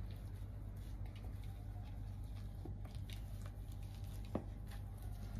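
Potato masher pressing boiled potato chunks in a bowl: faint soft squishing, with a few light knocks of the masher against the bowl, the clearest a little past four seconds in.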